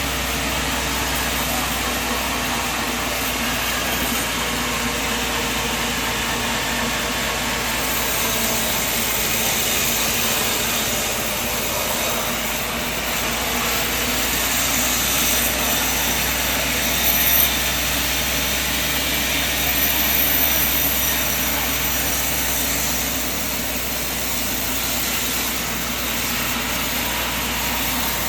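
Sawmill machine running steadily, a continuous mechanical drone with a broad hiss, swelling slightly a few times.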